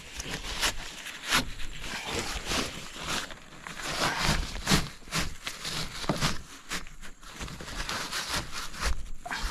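Plastic tarp rustling and scraping in irregular strokes as it is pulled over and tied to the rim of a small plastic boat.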